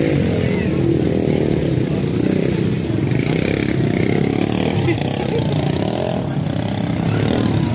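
Small youth dirt bike's engine running as it rides the motocross track, mixed with spectators' voices.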